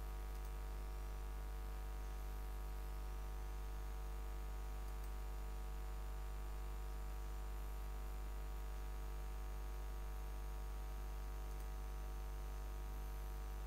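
Steady low electrical hum with hiss from the recording, and a few faint mouse clicks as layer styles are picked.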